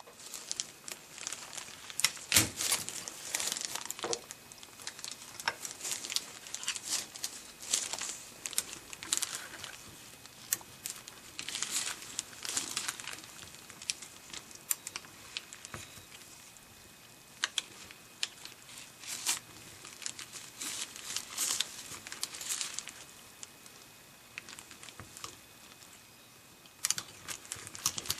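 Crinkling and rustling handling noise with scattered sharp clicks and taps, coming in bursts and thinning out after about two-thirds of the way through.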